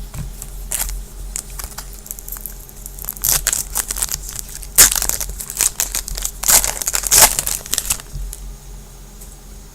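Foil wrapper of a baseball trading-card pack crinkling and tearing as it is handled and opened, in a run of sharp rustles that is loudest in the middle and stops about a second before the end.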